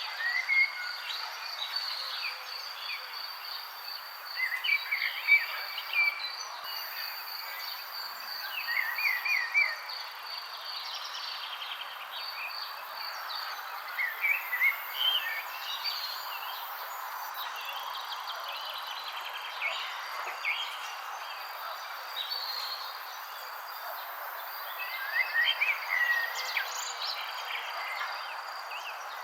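Birds chirping in short clusters of quick notes every few seconds, over a steady high insect trill and a constant background hiss.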